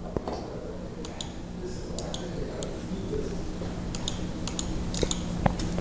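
Computer mouse clicking: several quick, sharp clicks in small groups, over a low steady hum.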